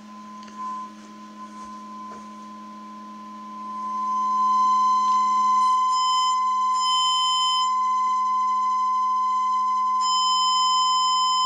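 Steady 1 kHz sine tone from a small loudspeaker driven by a Brüel & Kjær Type 2706 power amplifier. About four seconds in it is turned up and grows much louder, and the tone turns harsh with added overtones that come and go: distortion from the amplifier going into clipping.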